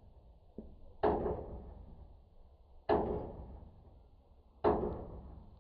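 Three heavy knocks or thuds, evenly spaced about two seconds apart, each dying away over about a second.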